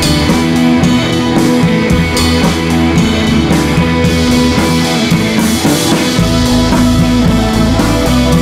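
Rock music with guitar and drums, the low end getting heavier about six seconds in.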